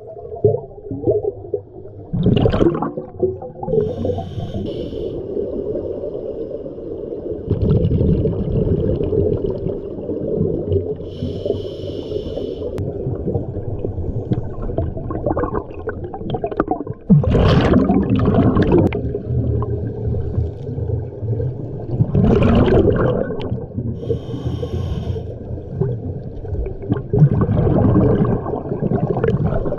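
Scuba diver breathing through a regulator underwater: a continuous low rumble of water, with short hissing inhales and louder bursts of exhaled bubbles every few seconds.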